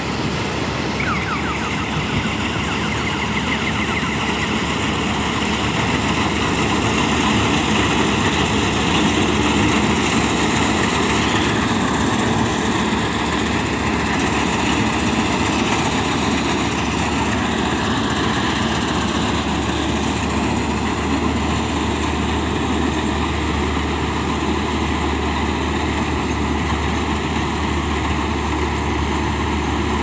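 Malkit 997 combine harvester running steadily while cutting and threshing wheat: its diesel engine and threshing machinery make a continuous machine noise, a little louder for a few seconds as it passes closest.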